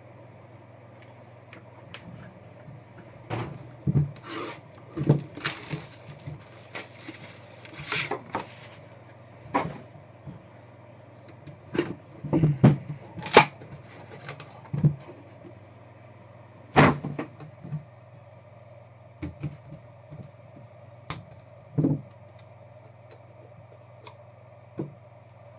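Hands handling a trading-card box and its cards on a table: irregular taps, knocks and clicks, with a longer rustle about a quarter of the way in.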